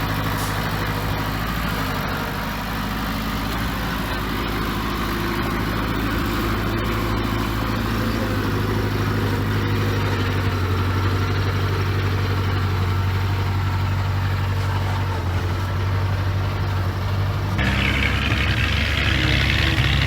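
Heavy diesel engine of earthmoving machinery running steadily, with a deep, even engine note. Near the end the sound changes abruptly to a louder, hissier engine note.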